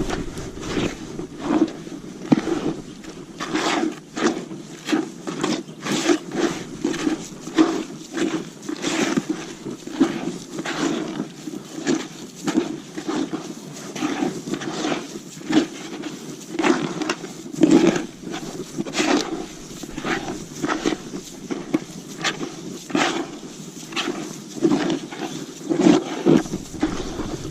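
Hands mixing wet feeder groundbait with water in a bucket: steady rhythmic squelching and scraping strokes, about two a second.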